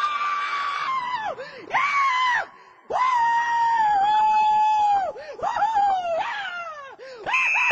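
A person screaming in a series of long, high-pitched cries that dip and swoop at their ends, the longest held for about two seconds, with a brief higher squeal near the end.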